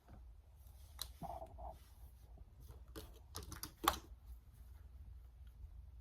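Light clicks and taps of small objects being handled: a couple about a second in, then a quick cluster between three and four seconds, the loudest near four seconds.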